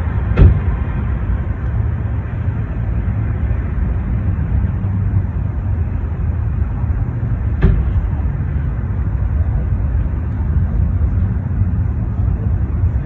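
Steady low rumble of street traffic, with two short sharp knocks, the louder one just after the start and another about seven and a half seconds later.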